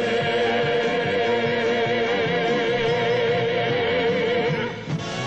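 A singer holds the last note of a Christmas song with vibrato over a full orchestra, a long sustained ending. It breaks off near the end as the accompaniment moves on.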